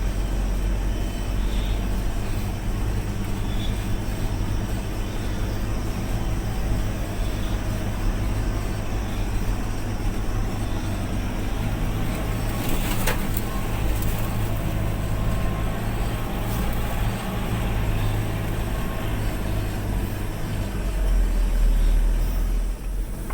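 4x4 vehicle engine running steadily at low revs in low-range first gear as it climbs a steep, muddy track slowly. A single sharp knock comes about halfway through, and the low engine sound grows louder shortly before the end.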